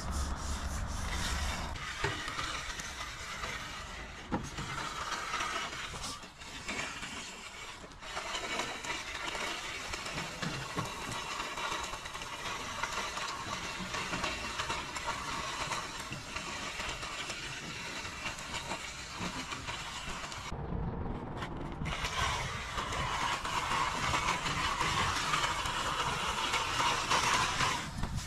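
Long-handled metal concrete edger being drawn along the edge of a freshly poured concrete sidewalk, a continuous scraping hiss of the blade on the wet concrete. The sound briefly drops away about two-thirds of the way through.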